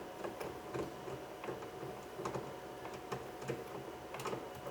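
Ratchet with a 10mm socket and extension clicking in a run of light, quick clicks as a bolt is turned out.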